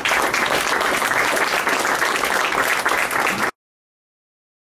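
Audience applauding, steady and dense, cut off abruptly about three and a half seconds in.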